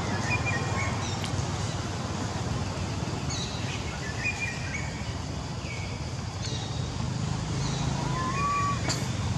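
Forest ambience: scattered short bird chirps over a steady low background noise, with one brief rising tonal call near the end.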